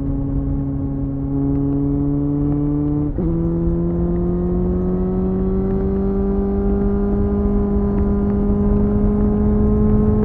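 Suzuki GSF 600 Bandit's inline-four with a BOS slip-on exhaust pulling under steady throttle, its note climbing slowly, with a brief break and a sudden step up in pitch about three seconds in, over a low rush of wind.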